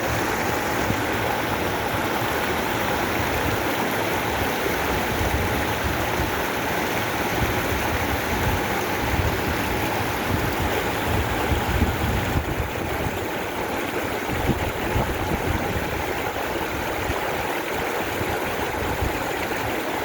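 Steady rush of flowing water, like a stream or small waterfall, with an uneven low rumble that grows stronger through the middle.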